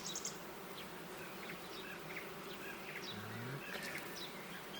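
Honeybees buzzing steadily around an open hive.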